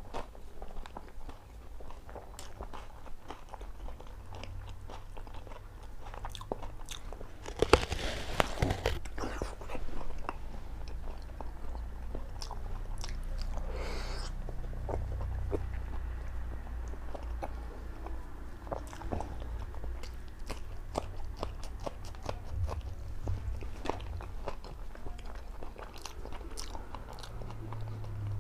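Close-miked eating: a person biting and chewing with frequent crisp crunches. A louder stretch of crunching comes about eight seconds in.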